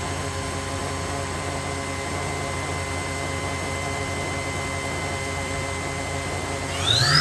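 Makino a61 horizontal machining center's spindle running steadily at 5,000 RPM, a steady whine with several fixed tones over a machine hum. Near the end it speeds up toward the next speed, the whine rising quickly in pitch and getting louder.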